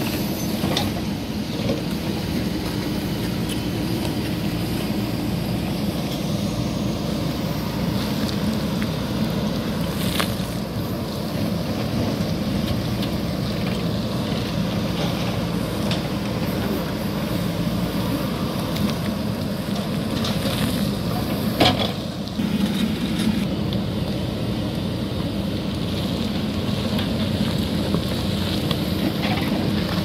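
JCB 3DX backhoe loader's diesel engine running steadily while its backhoe bucket digs through loose earth and stones. A few short knocks of the bucket against rock come through, the sharpest a little past two-thirds of the way through.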